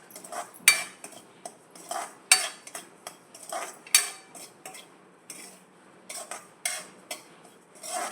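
Wheat rava being stirred in a pan as it heats in ghee: a utensil scraping and clinking against the pan in short, irregular strokes, about two a second.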